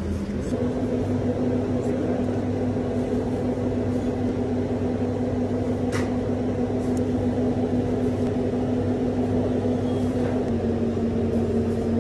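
Steady mechanical hum of commercial kitchen equipment, with a held tone that steps slightly higher about half a second in and drops back near the end. A faint click about six seconds in.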